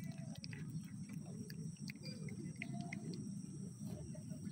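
A cat chewing a scrap of food off the ground, small irregular crunching clicks over a steady low background rumble.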